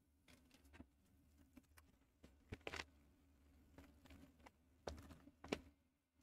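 Faint, scattered crinkles and taps of a foil-lined Mountain House freeze-dried meal pouch being handled, over near silence with a low room hum.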